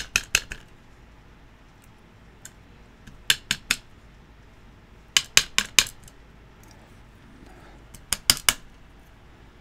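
Metal tweezers clicking against the brass plug of a Master Lock Pro Series 6835 and its small pins as the pins are picked out and set down. The clicks come in short bursts of three to five, a few seconds apart.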